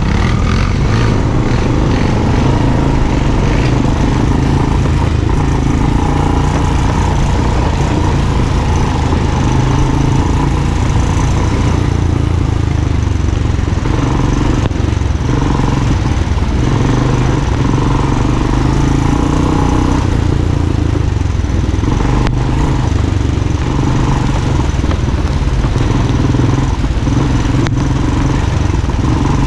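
ATV engine running steadily as the quad drives along a dirt trail.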